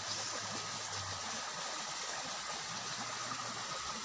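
Steady, even hiss of a shallow stream's flowing water, with a faint steady high tone over it.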